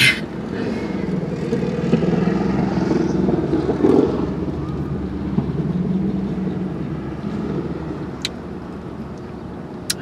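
A motor vehicle's engine running close by, growing louder over the first few seconds and fading toward the end, with a single faint click a little after eight seconds in.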